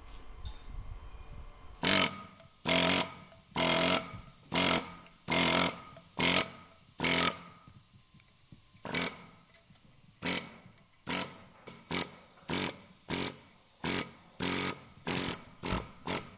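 Small handheld pneumatic carving hammer working a carved stone in short bursts, about one a second, with a pause midway. The last bursts come a little quicker.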